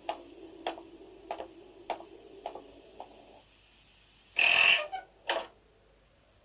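Cartoon footsteps on stone paving: six evenly spaced steps, fading as they go. Then two short loud noises about a second apart.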